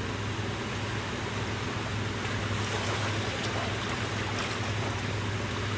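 Small sea waves washing and foaming over shoreline rocks: a steady rush of surf, with a steady low hum underneath.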